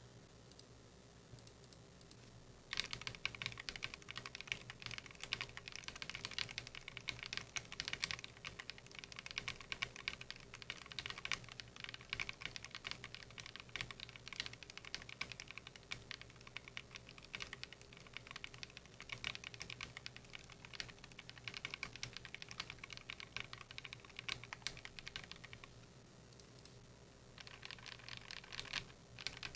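Fast typing on a custom 60% mechanical keyboard with lubed linear switches (Akko CS Radiant Red), aluminium plate and PBT keycaps: a dense, rapid run of keystroke clicks. It starts about three seconds in and pauses briefly near the end before resuming.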